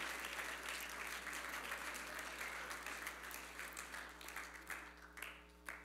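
Congregation applauding, the clapping thinning out over a few seconds into a few scattered claps near the end.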